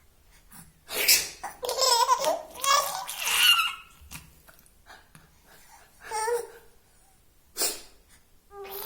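A short sharp sneeze about a second in, followed by bursts of high-pitched laughter for several seconds. Another brief sneeze-like burst comes near the end, just before more laughing.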